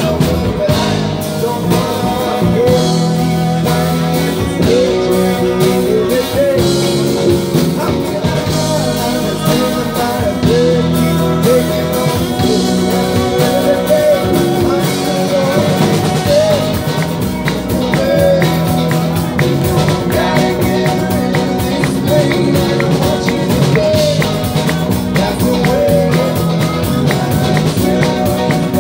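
A live band plays a rock song on acoustic and electric guitars, electric bass and bowed cello. The music is steady and unbroken.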